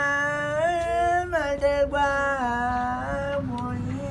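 A man singing a chant in long held notes that slide up and down between pitches, with no words picked out.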